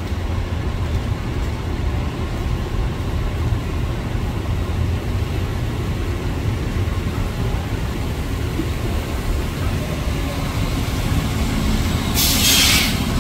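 Amtrak bilevel passenger cars rolling past with a steady low rumble of wheels on rail. About twelve seconds in, a short sharp hiss of air from a hybrid city bus's air brakes.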